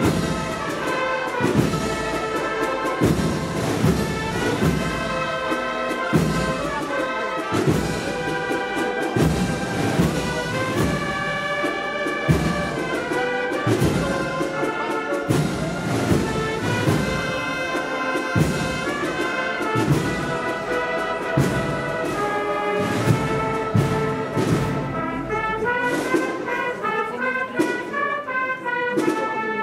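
A Sevillian agrupación musical, a marching band of cornets, trumpets and trombones with drums, playing a slow processional march: held brass chords over bass drum strokes at a steady slow pace.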